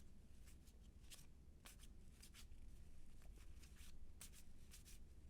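1990 Fleer baseball cards being flipped through by hand, one card slid off the stack after another: about a dozen faint, short swishes of card stock at an uneven pace.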